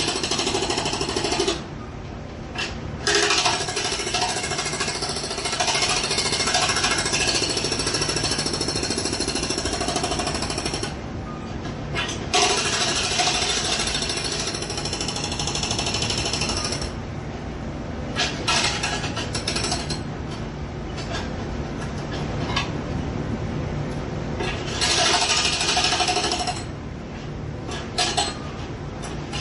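Jackhammer hammering rapidly in long bursts, stopping briefly and starting again several times, with quieter spells of lower-level clatter in between.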